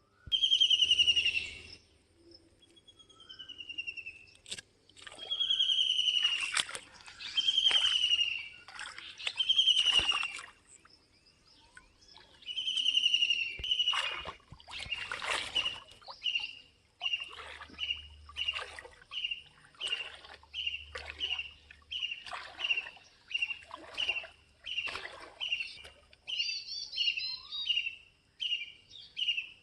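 A bird calling repeatedly, with loud whistled notes that slide downward in pitch, about one every two seconds. From about halfway the notes come shorter and faster, and there is a brief twittering flurry near the end.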